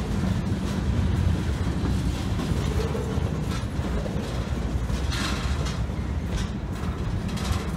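Freight train of centerbeam flatcars rolling past close by: a steady rumble of steel wheels on rail, with a few sharper clicks in the second half.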